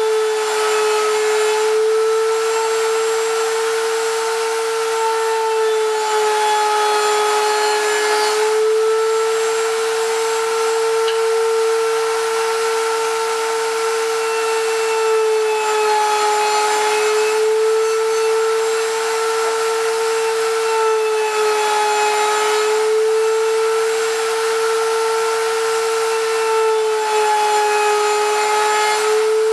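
Electric router running at speed beneath a homemade router table, a steady high whine. Several times its pitch dips slightly, with a rasping hiss, as the bit bites into wood fed across the table.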